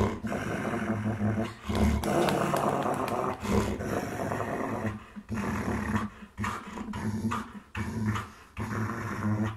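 Belgian Malinois play-growling with a rag tug toy clenched in its mouth: a continuous low growl for about five seconds, then a run of shorter growls with brief breaks between them.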